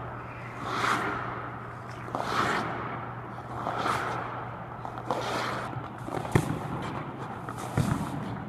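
Hockey goalie's skate blades carving and scraping the ice in rhythmic swishes, about one every second and a half, over a steady low hum. Near the end come two sharp knocks as the goalie drops into the butterfly and the pads and gear hit the ice.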